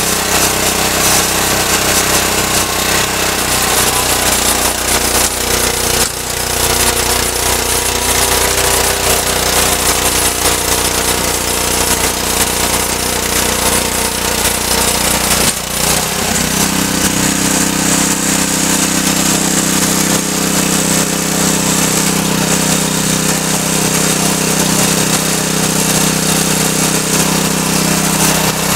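Cub Cadet RT 65H rear-tine tiller working soil: its Honda 6.5 hp single-cylinder engine runs steadily under load while the counter-rotating tines churn the dirt. About two-thirds of the way through, the engine note changes to a stronger, lower hum, and before that the sound dips briefly twice.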